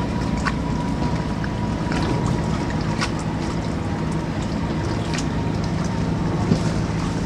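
Boat engine running steadily under way, a continuous low hum, with water rushing along the hull and wind buffeting the microphone; a few faint ticks come and go.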